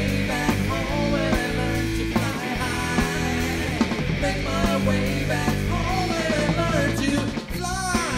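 Rock band playing, with drums keeping a steady beat under a melody line that bends in pitch; the music drops back briefly about seven and a half seconds in.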